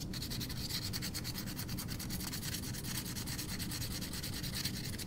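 320-grit sandpaper rubbed by hand back and forth across a small piece of metal, in quick, even strokes, several a second, that make a dry scratching hiss. This is the 320-grit stage, which replaces the coarser 220-grit scratches with finer ones.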